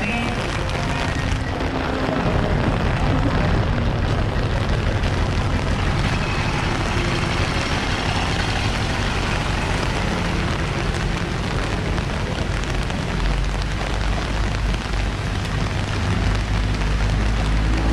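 Steady rain hiss on a wet street with vehicle engines running in traffic; a heavier engine rumble builds from about thirteen seconds in as a vehicle comes close.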